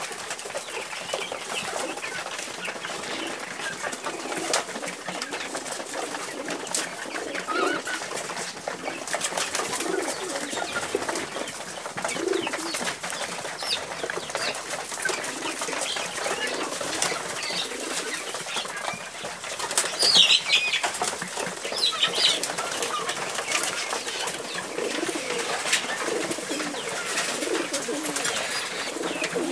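Domestic pigeons cooing over and over among a flock of chickens and pigeons, with wing flaps and scattered short clicks. A few sharp high calls stand out about twenty seconds in.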